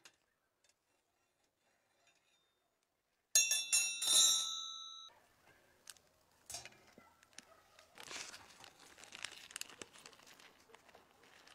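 A loud metal clatter with a ringing tone about three seconds in, from steel hooks and a rod knocking against a metal baking tray; it dies away within about two seconds. Later comes the crinkling of parchment baking paper being pulled back from the baked omelet.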